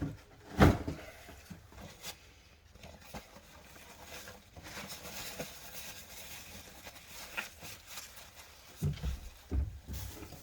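Food-prep handling at a cutting board: a sharp knock about half a second in, soft scraping and rustling as sea bass fillets are handled, and two dull knocks near the end.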